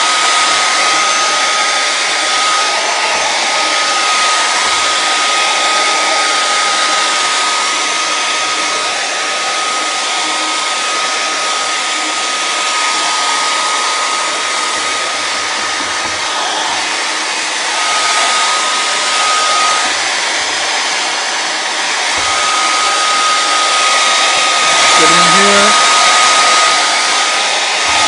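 Handheld hair dryer blowing steadily: an even rush of air with a high motor whine, which drops out briefly about twenty seconds in. It is drying wet contact cement on foam until tacky.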